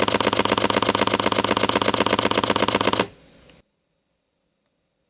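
Sony ZV-E10 mirrorless camera shutter firing a continuous high-speed burst, a rapid even run of clicks that stops abruptly about three seconds in.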